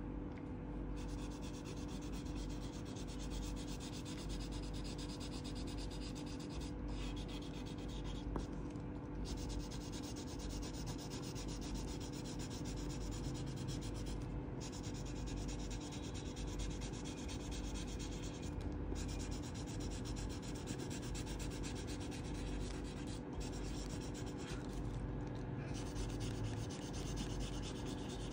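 Purple colouring pencil scratching back and forth on paper in rapid, continuous shading strokes.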